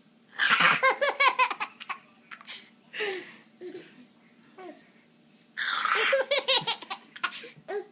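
Short hiss of a Reddi-wip aerosol can spraying whipped cream, each followed by a baby's quick, high-pitched belly laughter; this happens twice, about five seconds apart, with a shorter hiss and giggle between.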